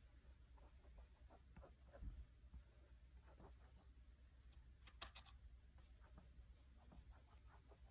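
Near silence with faint, scattered scratches and soft ticks of a small paintbrush working paint onto a canvas, with two slightly louder taps about two and five seconds in.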